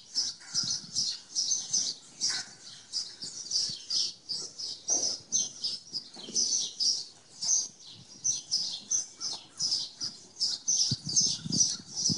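Small birds chirping over and over, short high chirps several times a second, with faint low thuds of hooves in the arena dirt underneath.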